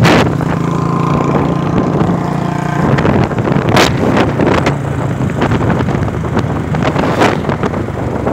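Motorcycle engine running steadily on the move, with wind rumbling on the microphone and a few sharp knocks from the phone being handled.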